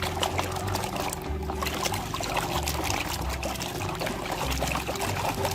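Water pouring and trickling over plastic toy vehicles as they are washed, with many small splashes and drips.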